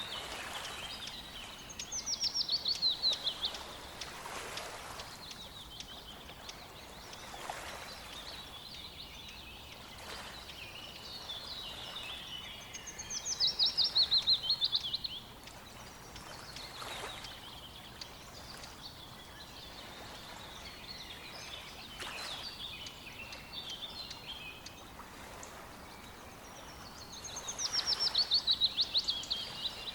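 A songbird singing a loud, fast, trilled phrase that falls in pitch, three times about twelve seconds apart, with softer chirps and calls from other birds in between.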